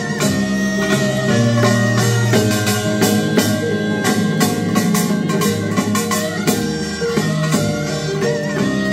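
Korean traditional-music (gugak) band playing an upbeat piece, with sustained melodic lines over a steady drum and percussion beat.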